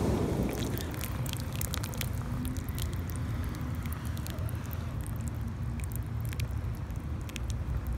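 Light splashing and lapping of water around a plastic toy car floating in a shallow pool: many small irregular crackling clicks over a steady low rumble.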